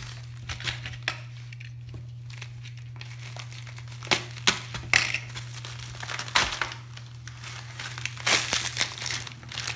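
Plastic poly mailer bag crinkling as it is handled and pulled open by hand, with several sharp, louder rips from about four seconds in and a run of them near the end.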